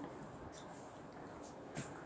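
Faint background hiss with murmuring voices and a few small clicks or taps, the clearest near the end.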